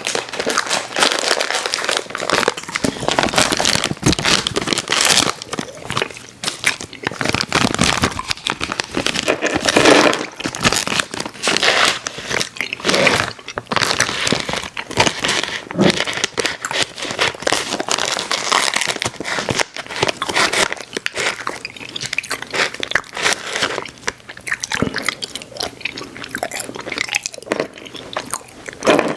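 A mouth chewing and biting Airheads Xtremes sour chewy candy, with a steady run of wet smacks, crunches and clicks and no pauses.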